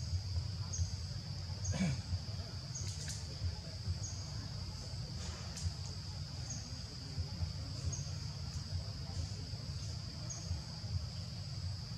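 Outdoor ambience: a steady high-pitched insect drone with short chirps repeating every second or so, over a continuous low rumble with small thumps and a few faint clicks.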